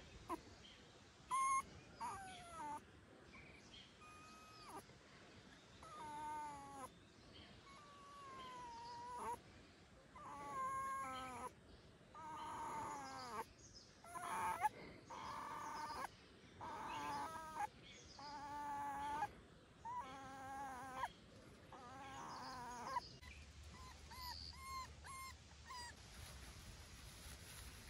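A puppy whining: a long string of high, wavering cries, one every second or two, with a few shorter, fainter ones near the end.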